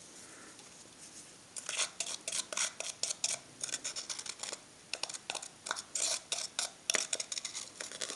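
Thin metal blade scraping and stirring Solar Flux welding paste in a small plastic cup: quick, irregular clicks and scrapes, several a second, starting about a second and a half in.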